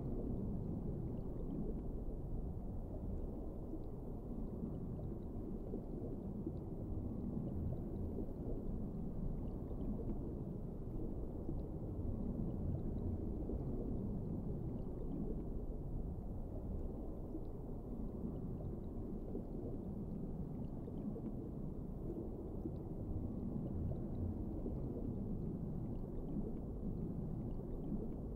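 Underwater ambience: a steady, muffled low rumble of moving water, with faint scattered ticks.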